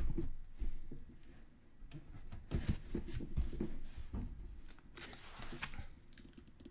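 Small plastic Lego bricks being handled and pressed together: scattered light clicks and taps, with a brief soft rustle about five seconds in.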